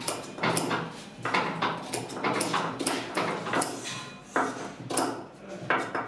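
Steel scissors snipping stiff green insulating paper into short pieces: a run of crisp cuts, about two a second, over a faint steady hum.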